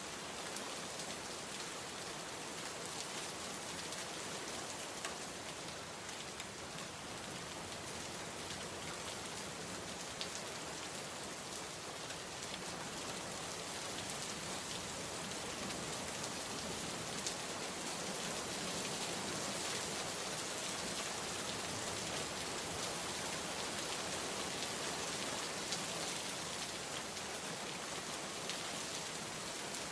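Steady rain falling on a surface, a dense even patter with scattered individual drop ticks, growing slightly heavier about halfway through.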